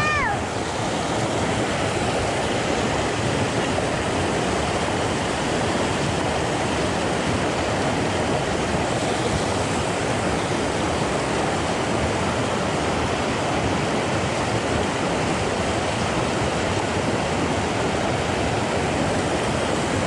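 Small rocky stream rushing over boulders in shallow rapids, a steady, unbroken sound of running water.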